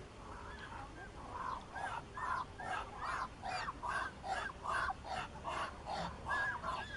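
Muscovy ducks calling: a rapid, even series of short calls, about two or three a second, beginning about a second in and getting louder.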